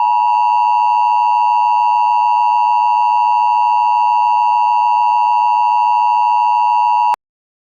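Emergency Alert System two-tone attention signal: a loud, steady, slightly harsh dual tone held for several seconds that cuts off suddenly near the end.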